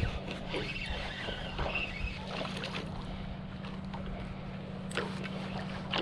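Steady low hum of a small boat's motor, holding one pitch throughout, over wind and water noise, with a sharp click about five seconds in.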